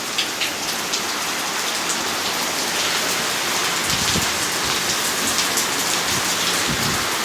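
Heavy hurricane rain pouring down steadily, with gusts of wind rumbling on the microphone from about four seconds in.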